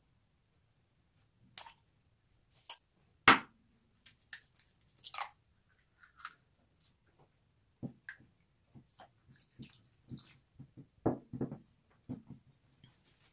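Scattered clicks and knocks of kitchen handling, such as utensils and dishes being moved and set down. There is one sharp knock about three seconds in and a quick run of knocks near eleven seconds.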